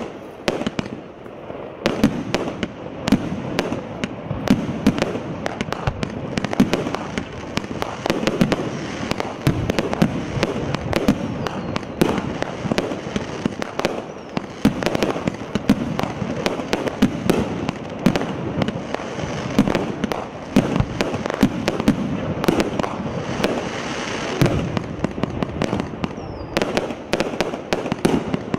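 Evolution Fireworks Cannonade, a 30-shot consumer firework cake with 30 mm tubes, firing shot after shot of mines and colour peony bursts. It sounds as a dense, irregular succession of sharp bangs and launch thumps that runs without a break.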